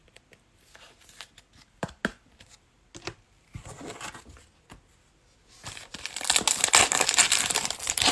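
Foil wrapper of a 2021 Playoff Football trading-card pack being torn open and crinkled, loudest for about two seconds near the end, after a few scattered light clicks and rustles of handling.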